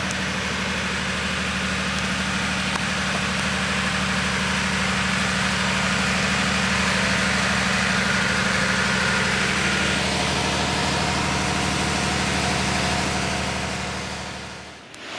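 Power plant generator running steadily: a constant deep hum under a dense, even mechanical whir. It fades out near the end.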